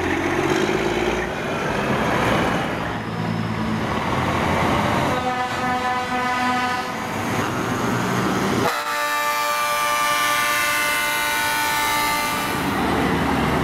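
Heavy truck engines running as trucks pull away, then truck air horns: a blast of about two seconds some five seconds in, and a louder multi-tone horn held for about four seconds from about nine seconds in.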